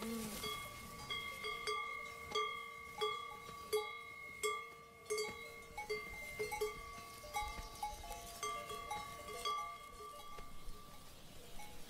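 Several cow bells on grazing cows clanking irregularly, one or two strikes a second, each strike ringing on briefly at the bells' own pitches.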